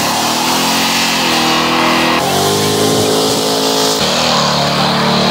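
Car engines revving in short clips spliced one after another, the engine pitch climbing as each is revved; the sound changes abruptly about two seconds in and again about four seconds in.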